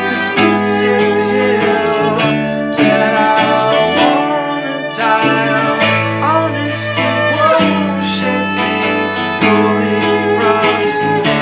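Instrumental passage of an acoustic indie-folk song: strummed acoustic guitar under a fiddle line, with regular drum strikes.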